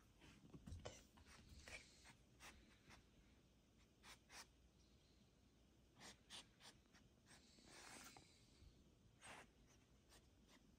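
Near silence: quiet room tone with a few faint, short, scratchy rustles scattered through it.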